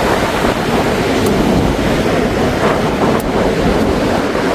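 Steady rush of heavy surf breaking on the beach, with wind buffeting the microphone.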